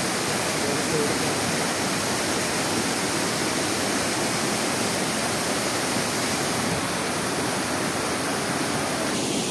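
Shallow river water rushing over a riffle: a steady, even rushing noise that does not change.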